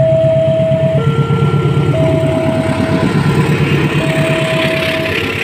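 Level-crossing warning alarm sounding its two-tone signal, switching between a higher and a lower note about once a second, over the low rumble of a diesel freight train passing. From about four seconds in, the rushing clatter of the freight wagons rolling over the rails builds up.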